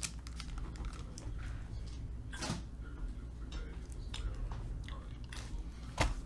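Scattered faint clicks and handling noises over a steady low hum, with a sharper knock about two and a half seconds in and a louder one near the end as a computer keyboard is set down on the desk mat.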